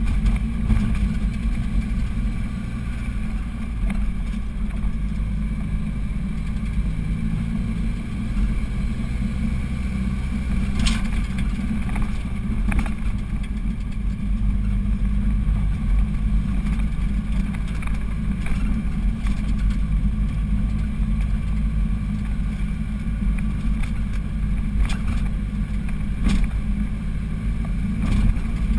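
Car engine droning steadily under load, heard from inside the cabin as the car climbs a steep mountain road, with a few sharp knocks along the way.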